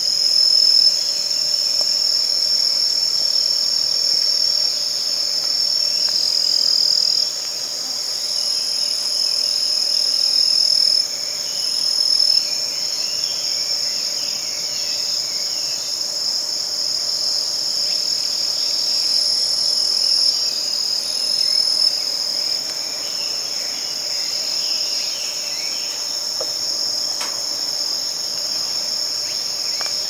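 Chorus of singing insects: several steady, high-pitched trills overlapping, with individual singers dropping in and out.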